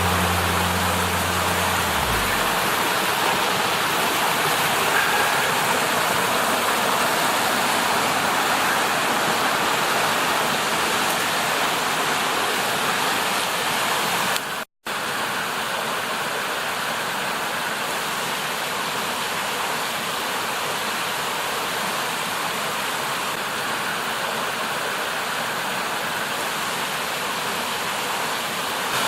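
Steady rushing of water over the creek's rocky cascades, with a low hum that stops about two seconds in and a momentary drop to silence about halfway through.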